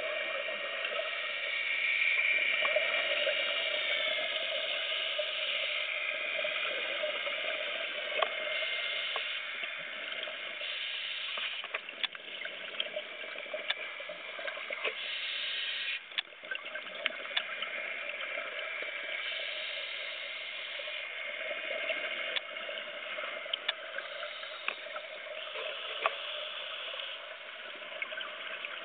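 Underwater sound through a camera housing: a scuba diver's regulator hissing and bubbling, swelling every few seconds with each breath. Scattered sharp clicks sound throughout.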